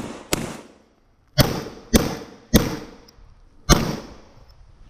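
Five 9mm pistol shots from a PSA Dagger, fired during a timed stage: one shot shortly in, a pause of about a second, three quick shots about half a second apart, then a fifth about a second later.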